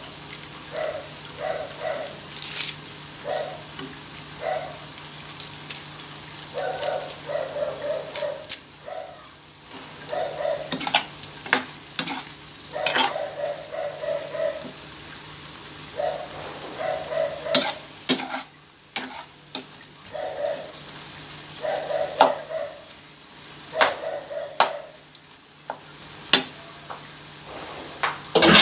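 Sliced pork sizzling in a nonstick frying pan while a metal spoon stirs it, scraping and clicking against the pan in quick runs of strokes.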